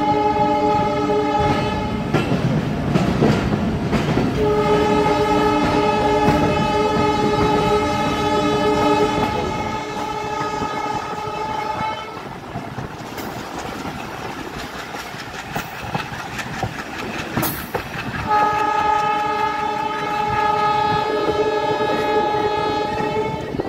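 Train horn sounding in long, steady blasts: one briefly at the start, a long one from about four seconds in, and another from about eighteen seconds in. Underneath runs the rumble and clickety-clack of a moving train.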